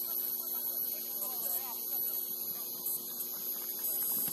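Steady electrical hum made of several constant tones, including a high whine, with faint distant voices calling.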